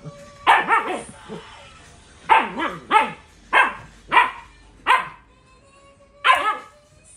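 Siberian husky puppy barking: about ten short barks, each dropping in pitch, coming in uneven bunches with short pauses between.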